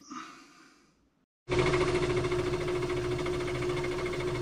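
Small bench metalworking lathe running: a steady motor and gear-train hum with one steady tone, starting suddenly about a second and a half in, after a brief light clunk of handling.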